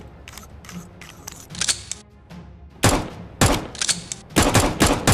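Background music with a steady beat and a few light clicks, then from about three seconds in, loud bursts of rapid gunfire as a toy foam-dart blaster fires.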